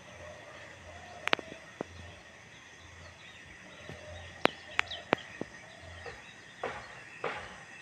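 Outdoor ambience with faint bird chirps, a few sharp clicks in the middle, and two short noisy bursts near the end.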